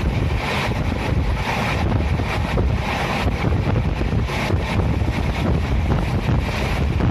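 Train running steadily, heard on board: a loud, continuous low rumble with wind rushing over the microphone.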